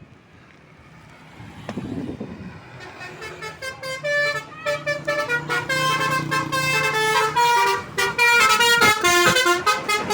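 Tour bus's telolet horn, a set of multi-tone air horns, playing a fast tune of short stepping notes that swells louder in the second half, over the low rumble of the bus engine.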